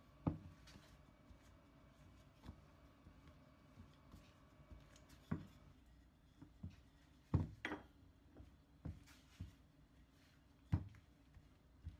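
Wooden rolling pin working a sheet of dough on a plastic cutting board: scattered knocks and thumps as the pin and hands bump the board, about eight over the stretch, with the loudest near the start, past the middle and near the end.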